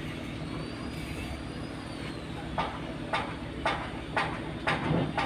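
An engine running steadily with a low drone. About halfway through, sharp knocks join it at an even pace of about two a second.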